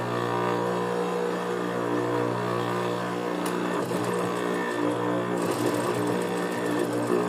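Juki industrial sewing machine: its motor hums steadily, and about five seconds in the needle starts running, a fast stretch of stitching through suede fabric.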